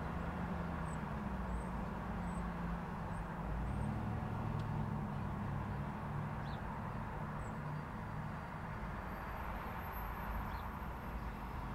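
Road traffic at an intersection: car and truck engines running with a steady low hum and tyre noise. A few faint, short high chirps sound over it.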